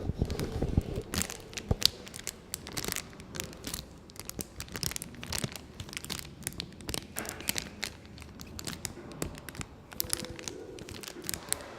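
Irregular crinkling and crackling, many sharp ticks and rustles at uneven intervals, as of something being crumpled or handled by hand.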